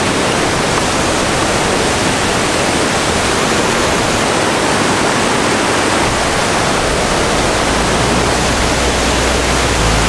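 Waterfall: a loud, steady rush of falling water, with a deeper low rumble joining about seven seconds in.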